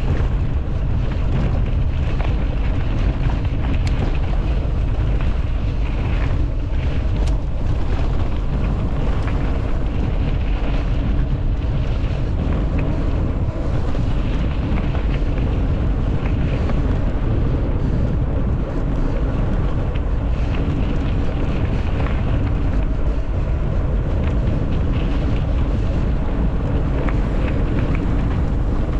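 Steady wind noise buffeting a GoPro's microphone as a mountain bike is ridden, a dense rushing with most of its weight in a low rumble.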